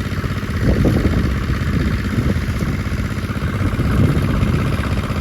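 A small engine running steadily with a rapid, even pulse.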